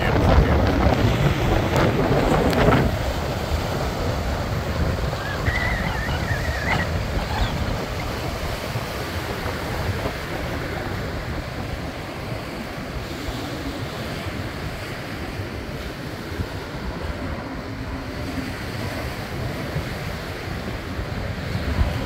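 Small surf waves breaking and washing up a sandy beach, with wind rumbling on the microphone. It is louder for the first three seconds, then settles into a steady wash.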